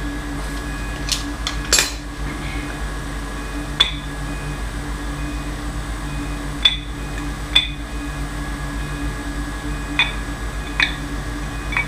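Sharp metallic clinks and knocks, about eight spread through, as a cast metal water check valve and a hand tool are handled and knocked together, over a steady low hum.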